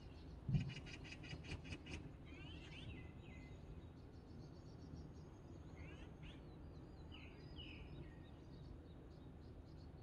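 Faint wild birds calling from the trees: a rapid high trill in the first two seconds, then several short sweeping chirps spread through the rest, over a thin high steady note. A single low thump about half a second in.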